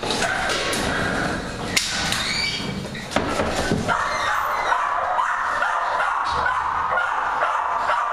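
Many dogs barking and yipping at once, a continuous overlapping din of short calls.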